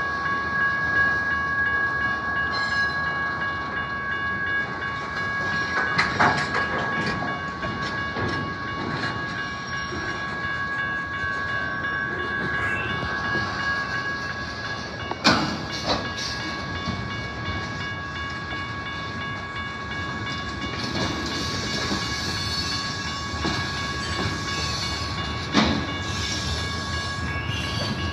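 Freight train cars rolling past close by, wheels clattering over the rails, with a few sharp metallic clanks, the loudest about fifteen seconds in. A steady high-pitched tone runs through it, fading out around the middle and coming back.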